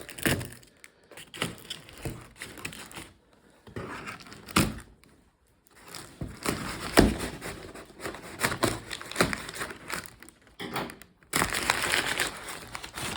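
Packaging being handled and unwrapped: irregular crinkling and crackling with scattered knocks, thickening into continuous crinkling near the end.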